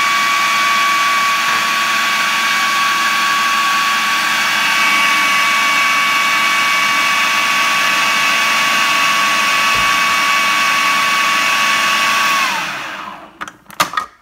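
Kenwood food processor motor running with a steady whine, blending cooked chickpeas with their cooking water. Near the end it is switched off and the whine falls in pitch as it spins down, followed by a few clicks.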